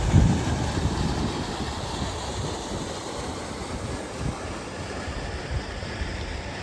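Wind buffeting the microphone over a steady outdoor rushing noise, with the strongest gusts right at the start.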